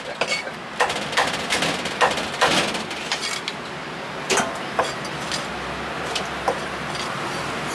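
Irregular knocks of a steel cleaver on a thick round wooden chopping block as chopped meat is gathered and scooped off it, about eight knocks spread unevenly, the sharpest about two and a half and four seconds in.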